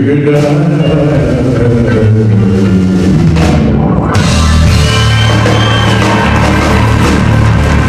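Live rock band playing the closing bars of a song, with drum kit, bass and electric guitar. About four seconds in, cymbals crash and keep ringing over a held final chord.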